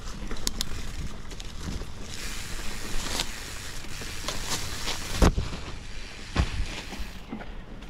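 Mountain bike rolling over a dirt forest single track, with leaves and branches brushing past and scattered small clicks and rattles. Two louder knocks come in the second half.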